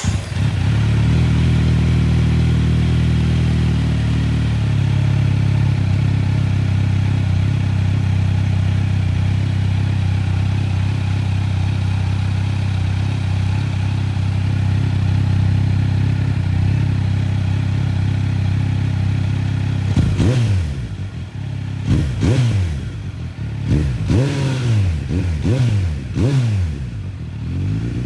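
2018 Kawasaki Z900's inline-four engine running through an M4 carbon-fibre slip-on exhaust. It idles steadily, its pitch dropping slightly about four seconds in. From about 20 seconds in, a run of quick throttle blips sends the revs up and down again and again before it returns to idle.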